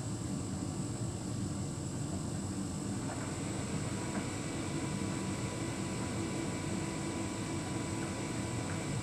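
Hotpoint heat pump tumble dryer running on its Bed and Bath programme: a steady hum of the drum and fan. A faint whine joins about three seconds in, and there are a few faint light knocks.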